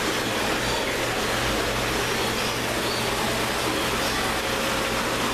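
Steady rushing of water cascading over a ledge into a koi pond, with a faint low hum underneath.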